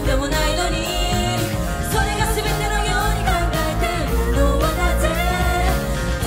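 Live J-pop idol song: sung vocals over a band track with a steady drum beat.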